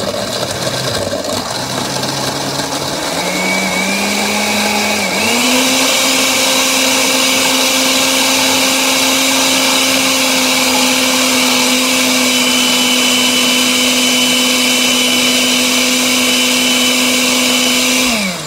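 Countertop blender motor running, blending chunks of avocado and pistachios in coconut water into a smoothie. It starts on low, steps up in speed twice in the first five seconds, runs steady, then winds down near the end.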